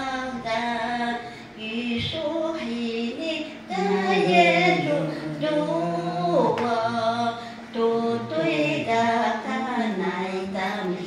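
Singing: a song in long held notes, with short breaks between phrases about every two seconds.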